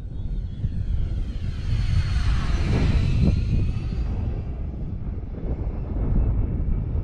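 Radio-controlled Airbus A320 model jet flying past, its engine whine swelling to a peak about halfway through and dropping in pitch as it goes by. Wind buffets the microphone underneath throughout.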